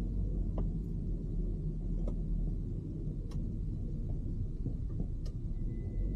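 Steady low rumble of a car rolling slowly over wet pavement, heard through a rain-spattered outdoor camera, with a few scattered sharp ticks of raindrops striking the camera.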